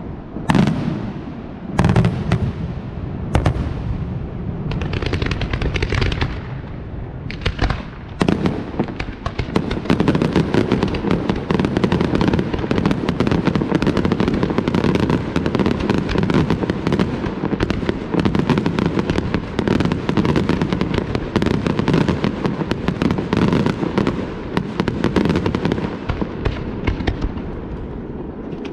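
Fireworks display: aerial shells bursting as a few separate loud bangs in the first several seconds, then from about eight seconds in a dense barrage of rapid reports and crackle that thins out near the end.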